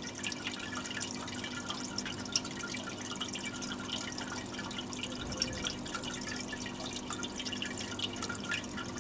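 Floating-tap fountain's stream of water falling into a galvanized metal bucket of water: a steady trickling splash with small drips, over a steady low hum.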